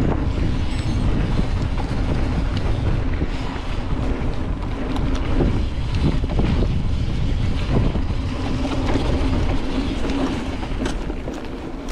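Cross-country mountain bike running fast down a rough dirt downhill trail: a steady rumble of tyres, with the chain and frame rattling in many short clicks and knocks, and wind buffeting the microphone.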